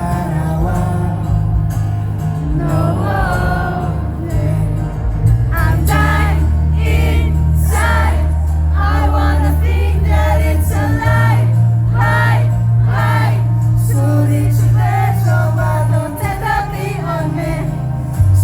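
Live band performance, loud: a rock song with sung vocals over long held bass notes that shift pitch every few seconds.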